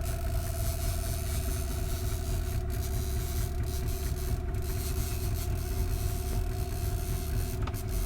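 Fishing reel's ratchet clicker buzzing steadily as a hooked barramundi pulls line off the reel, dipping briefly a few times, over a steady low hum and rumble.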